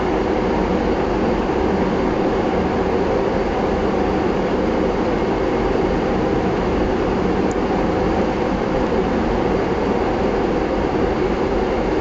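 A steady machine hum with an even rushing noise, unchanging throughout, such as a fan or motor running.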